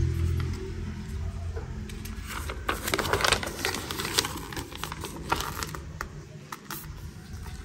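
Packaging being handled during an unboxing: crinkling and rustling with sharp clicks and taps, busiest a few seconds in. A low steady hum fades out in the first second.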